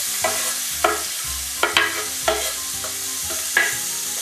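Chopped onion sizzling in hot olive oil in a stainless-steel frying pan, a steady hiss, with about half a dozen sharp knocks and scrapes as a chef's knife pushes the onion off a wooden cutting board into the pan.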